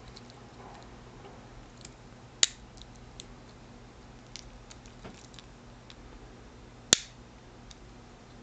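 Metal torch cigar lighter being handled, with small metal ticks and clinks throughout and two sharp loud clicks, one about two and a half seconds in and one about seven seconds in.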